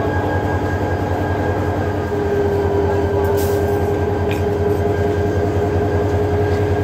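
Diesel locomotive engine idling with a steady low throb; a higher steady tone joins about two seconds in and the sound grows slightly louder. A brief hiss comes about halfway through.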